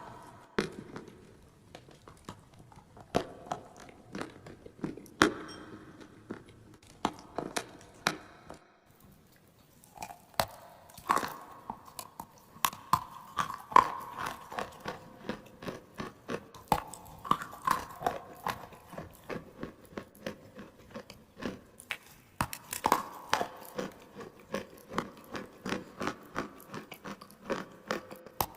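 Clay being bitten and chewed close to the microphone: a run of sharp crunches and crackles, with a brief lull about a third of the way in before the crunching picks up again.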